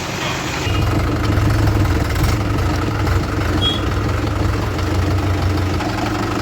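Diesel engine of heavy earthmoving machinery running under load, a steady low rumble that picks up under a second in and eases off near the end.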